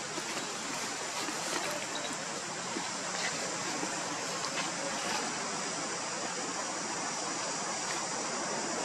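Steady outdoor background noise, an even hiss with a high-pitched band in it, broken by a few faint ticks.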